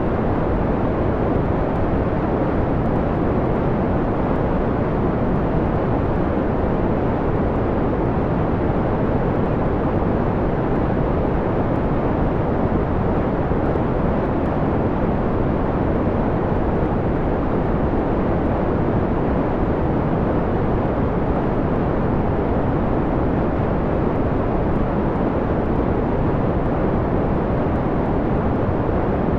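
Steady generated noise, filtered to a dull, mellow rush with most of its weight low and little treble. This is white noise dimmed down from a bright hiss.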